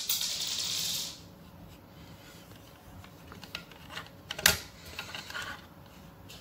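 A hiss in the first second, then plastic Lego Technic parts clicking and rattling as the rubber-band gun is handled and set down on a wooden board, with one sharper click about four and a half seconds in.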